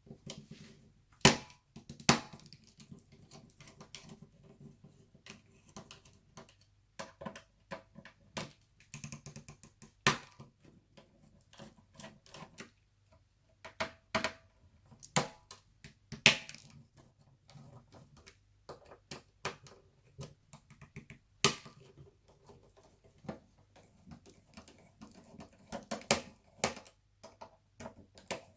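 Irregular sharp clicks and taps of small plastic and metal parts inside an opened laptop, as cable connectors are unplugged from the motherboard.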